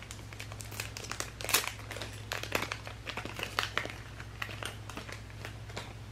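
Plastic being handled and crinkled by hand: a run of irregular sharp crackles, the loudest about one and a half seconds in.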